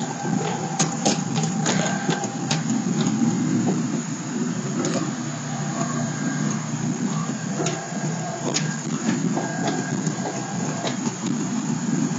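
Pickup truck engine running, heard from inside the cab as a steady low rumble, with scattered sharp clicks and rattles.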